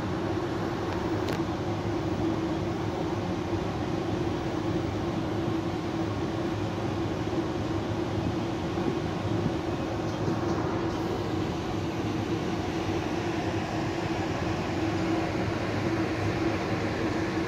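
Steady hum of a cruise ship's ventilation and machinery: a constant droning tone over an even rushing noise, with no change in level.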